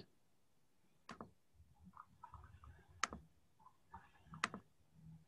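Three sharp, isolated computer mouse clicks, a second or two apart, with faint low background noise between them.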